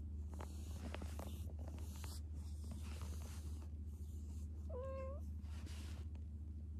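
A domestic cat gives one short meow, rising slightly in pitch, about five seconds in, over soft rustling of fur under a stroking hand and a steady low hum.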